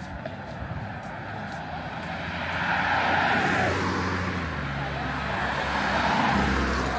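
Road traffic: a motor vehicle passes close by, its tyre and engine noise swelling about two to three seconds in. A low engine hum grows stronger near the end as another vehicle comes close.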